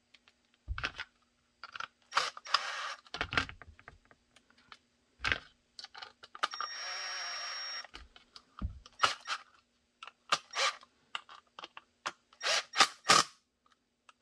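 Clicks and knocks of screws and hard Kydex holster parts being handled and fitted together, with a cordless screw gun running steadily for about a second, roughly halfway through, driving a screw.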